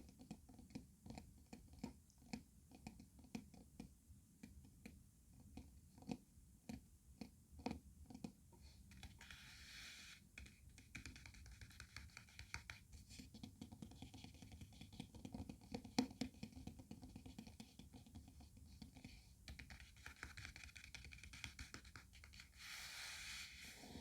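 Soft, quiet scratching and tapping close to the microphone: a run of light clicks, a few a second, then stretches of scratchy rustling.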